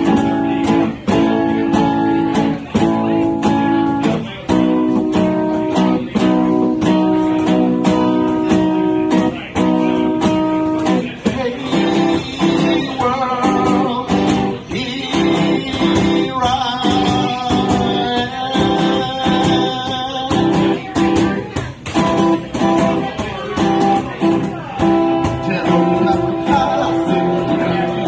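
Acoustic guitar strummed in a steady rhythm, chords ringing out with each stroke.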